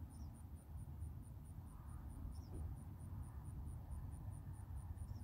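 Faint outdoor background: a steady low rumble, like wind on the microphone, with a few faint high chirps.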